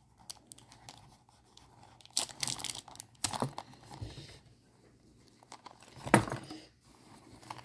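Small plastic packaging and charms being handled: crinkling and rustling with light clicks, in a few short bursts.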